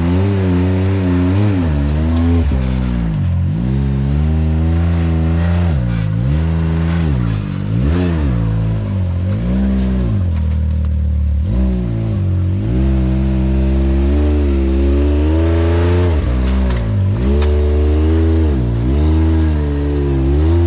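Can-Am Maverick X3 side-by-side's turbocharged three-cylinder engine revving up and down over and over in short throttle bursts as it crawls up a rocky climb. It settles lower for a moment about halfway through, then picks up again.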